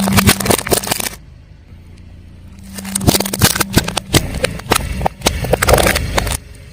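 Car tyre rolling over crunchy objects and crushing them, a dense run of crackling and snapping over the low hum of the car. It comes in two bursts: a short one at the start and a longer one from about three seconds in, each cutting off abruptly.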